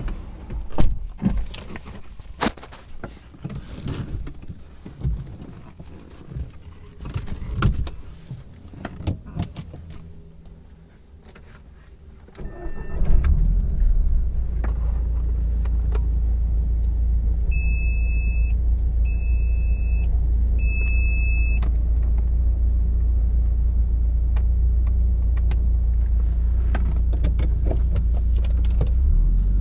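Irregular clicks and knocks, like keys and handling, for about twelve seconds. Then the Audi TT's straight-piped 1.8-litre turbocharged four-cylinder cranks briefly, catches and settles into a steady low idle. Three short electronic beeps sound a few seconds after it starts.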